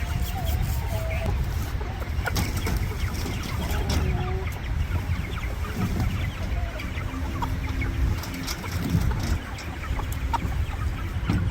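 Chickens clucking, with scattered clicks and knocks over a steady low rumble.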